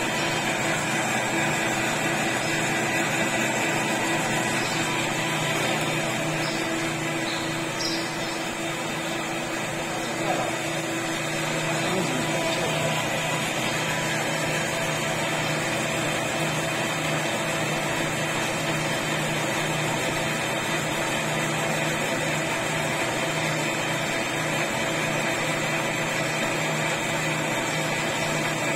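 Metal lathe running with a steady machine hum of several constant tones, its carriage travelling along the freshly reground bed under a dial indicator check.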